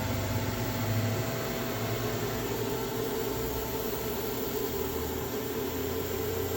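Steady machine-shop background hum: a low drone under an even, fan-like rush, with no knocks or changes.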